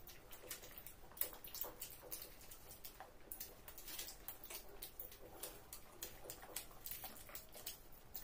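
Children chewing and smacking their lips while eating french fries: many quick, irregular wet clicks.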